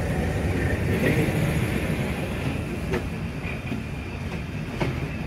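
Tezgam express train running on the track, heard from its rear guard coach: a steady rumble of wheels on rail, with a few sharp clicks about three seconds in and again near the end.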